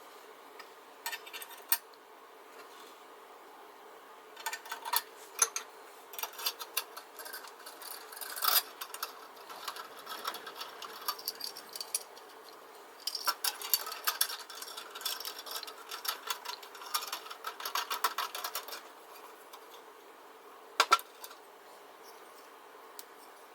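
Small metal lantern parts being handled and fitted together by hand: irregular clicks, clinks and rubbing that come in bursts, with one sharper click near the end.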